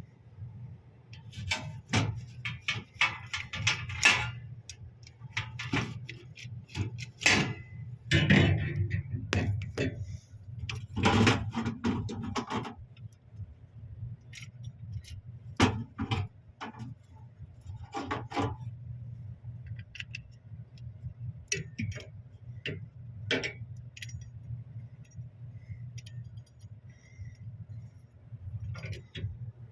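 Repeated metallic clicks, taps and scraping from small parts and tools being handled while working on a seized refrigerator fan motor, over a steady low hum. The clicks come thickest in the first half.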